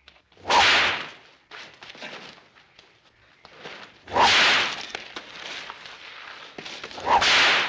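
A bullwhip cracking three times, about three seconds apart, with fainter noise between the cracks.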